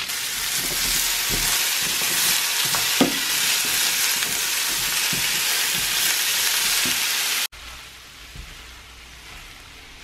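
Sliced vegetables sizzling loudly in oil in a non-stick frying pan, stirred with a plastic spatula that gives occasional knocks and scrapes against the pan. About seven and a half seconds in the sizzle cuts off suddenly to a much quieter level.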